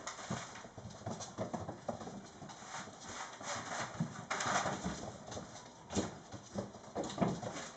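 Young mastiff puppies scampering and scuffling on a wooden floor: irregular clicks and knocks of paws and claws, busier a little past halfway.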